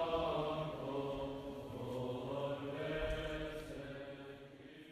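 Closing music of sustained, slowly shifting tones that fades out toward the end.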